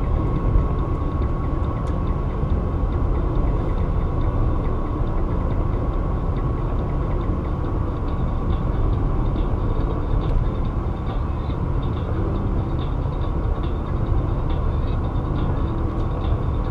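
Steady road and engine noise of a car driving at highway speed, heard from inside the cabin, with a faint steady high tone that fades out about two-thirds of the way through.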